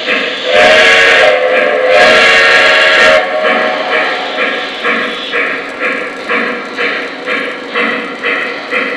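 O gauge model Shay steam locomotive's sound effects: two whistle blasts, one short and one longer, in the first three seconds, over a steady chuffing of about two beats a second as the engine runs slowly.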